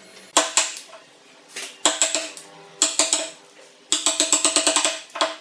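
Hammer knocking wooden wedges into the rail joints of a solid-wood bed frame to lock it together: several single sharp knocks with a short ring, then a fast run of light taps, about nine a second, near the end.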